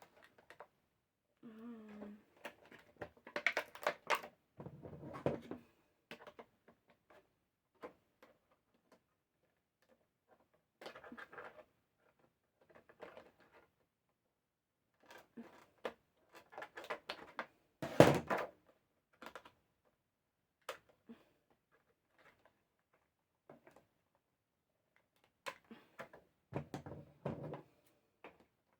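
Plastic action-figure packaging and small plastic accessories being handled: scattered clicks, taps and rustles, with a sharp knock about 18 seconds in.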